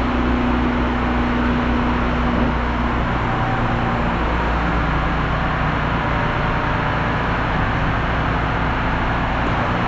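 Diesel truck engine running steadily under crane work, with a steady hum over it that fades out about three to four seconds in.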